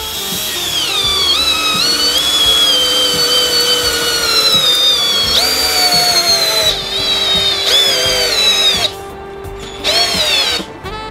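Favourite DC 1802 PROMO 18 V cordless drill-driver driving a screw into a wooden block. Its motor whine sags in pitch as the screw bites. There are four runs: one long one, then three shorter bursts a second or so apart as the trigger is released and squeezed again.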